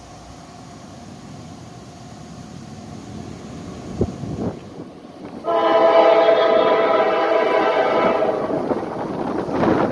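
Locomotive air horn of an approaching freight train sounding one long blast of about three seconds, starting about halfway in, a chord of several steady tones: the warning for a grade crossing. A couple of brief knocks come just before it, and wind buffets the microphone near the end.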